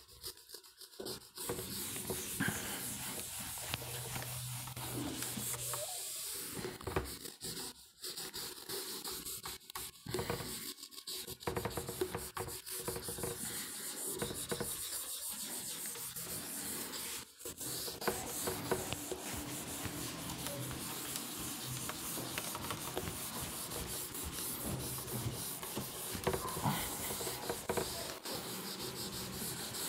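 Handheld eraser rubbed back and forth across a whiteboard, a steady scrubbing broken by a few short pauses.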